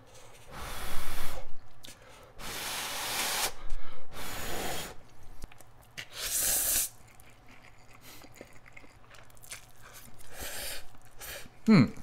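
A person slurping boiled cup-ramen noodles in shrimp broth: four long, loud slurps in the first seven seconds, then quieter chewing, with a short falling hum near the end.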